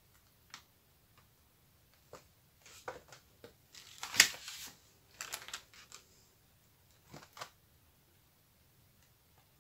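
Scattered taps, scrapes and rustles as a wet stretched canvas is tilted by hand, set down on the covered worktop and lifted again. The loudest knock-and-rustle cluster comes about four seconds in, with two smaller taps near the end.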